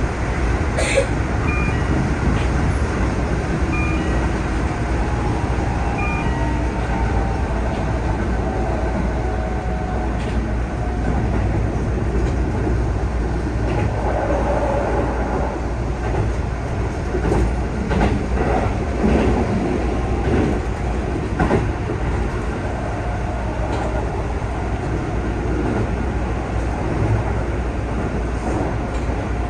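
Keihan 3000 series electric train running at speed, heard from the driver's cab: a steady wheel-on-rail rumble with scattered clicks, and a faint whine from its Toyo IGBT-VVVF traction equipment.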